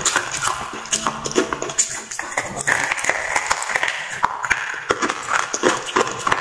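Close-miked biting and chewing of water-soaked slate pencils: an irregular run of sharp, crunchy clicks, several a second.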